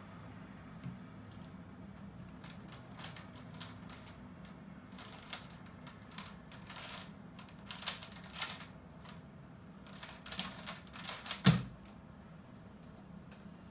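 GAN Infinity 3x3 speedcube clicking and clacking as it is turned rapidly through a speedsolve, the clicks sparse at first and then in dense flurries. It ends with a single loud thump near the end as the solved cube is put down and the timer is stopped.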